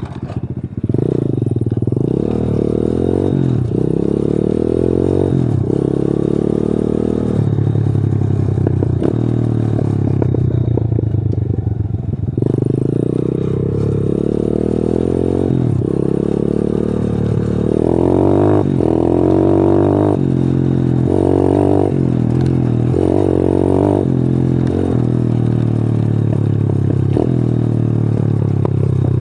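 125 cc pitbike's single-cylinder four-stroke engine heard from the seat while riding, revving up repeatedly and dropping off between rises as the throttle is opened and closed. Around the middle and towards the end it gives a run of quick blips on and off the throttle.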